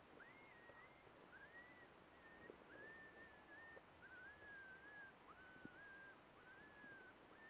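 Faint series of high whining animal-like calls, each note sliding up quickly and then held level for about half a second, repeating roughly once a second, as from a coyote or a predator call.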